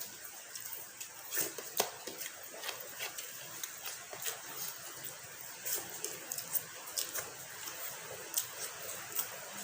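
Close-up eating sounds: chewing with many small, irregular wet mouth clicks.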